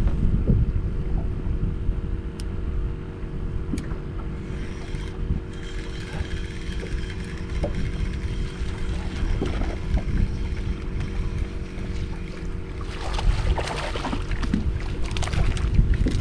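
Wind buffeting the microphone on a small boat over a steady low hum, while a hooked fish is reeled in; near the end it thrashes and splashes at the surface beside the boat.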